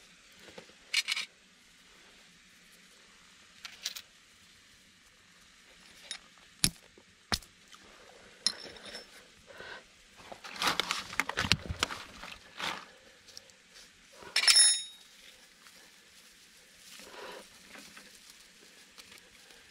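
Camp gear being handled: scattered knocks and rustling, with a few sharp metallic clinks. The loudest clink, about two thirds of the way through, rings briefly.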